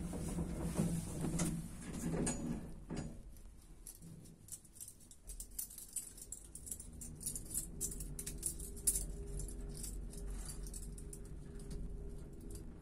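Passenger lift car in motion: a steady low hum from the lift's drive comes in about five seconds in, and a steady tone joins it a couple of seconds later. Light, irregular clicking runs throughout.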